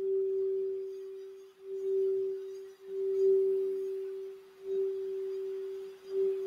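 Crystal Alchemy crystal singing bowl tuned for the throat chakra, sung by rubbing a wand around its rim. It sounds one sustained tone that swells and dips about every second and a half.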